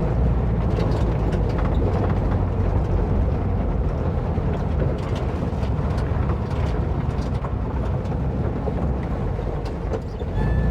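1958 Volkswagen Bus's air-cooled flat-four engine running steadily as the bus drives through sand in second gear, with scattered knocks and rattles.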